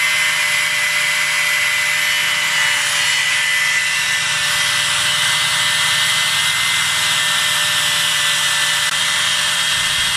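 Electric angle grinder fitted with a buffing disc, running at a steady speed with a constant high whine while it buffs the old paint off a motorcycle wheel hub.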